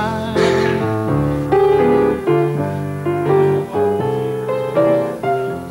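Keyboard music: chords over a bass line, the notes changing every half second or so.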